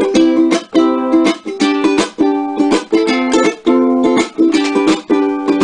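Ukulele strummed in a steady rhythm, its chords ringing between strokes.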